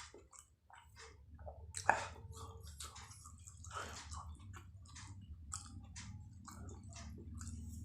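Close-up mouth sounds of a person chewing martabak telur (egg-stuffed fried pancake) with chilies: irregular wet smacks and clicks, the sharpest about two seconds in, over a steady low hum.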